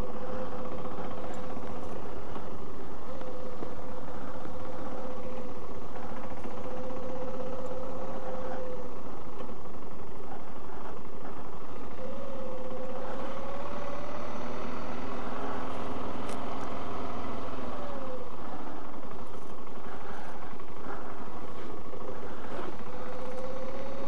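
Motorcycle engine running as the bike rolls along at low speed. Its pitch holds steady, rises about halfway through and drops back a few seconds later with the throttle.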